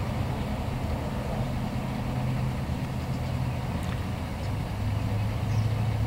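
A vehicle engine idling steadily with a low hum, which drops slightly in pitch and grows a little louder near the end.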